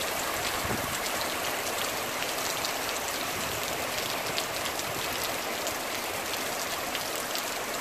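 Heavy rain pouring onto asphalt and puddles: a steady, dense hiss with the fine patter of countless drops.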